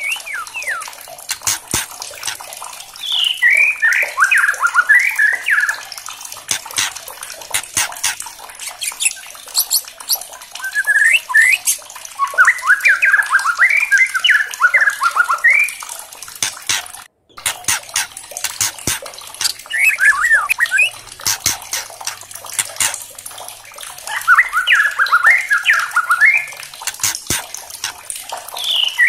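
White-rumped shama singing in repeated bursts of rapid, varied phrases, each lasting a few seconds, with many sharp clicks in the gaps between. The sound cuts out briefly a little past halfway.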